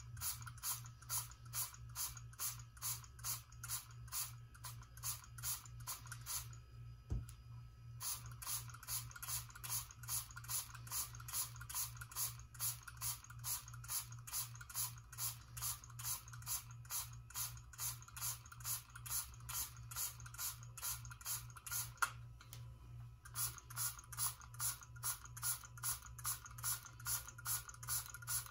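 Handheld Homedics Ozone Clean trigger sprayer being pumped continuously, each squeeze a short spray, about three a second. The spraying stops briefly twice.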